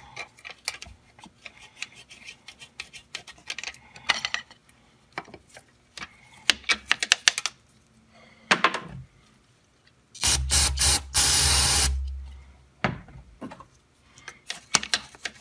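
A brush scrubbing inside a throttle body in quick, scratchy strokes. About ten seconds in, an aerosol can of cleaner gives a few short spurts and then a longer hiss of spray lasting under two seconds. The scrubbing resumes near the end.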